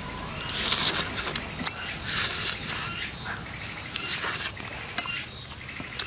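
Wet chewing and lip-smacking as a person gnaws meat off a piece of sauce-braised duck on the bone, with irregular smacks and small clicks and the meat tearing between the fingers.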